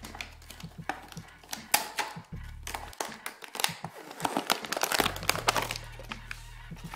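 Stiff plastic packaging crinkling and crackling in the hands, with many irregular sharp clicks, over background music.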